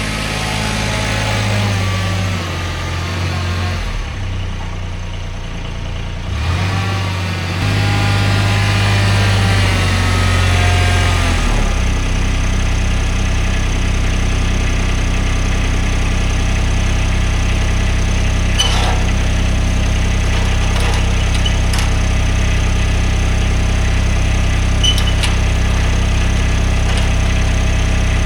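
An engine running, shifting in pitch and load for about the first twelve seconds, then settling into a steady idle.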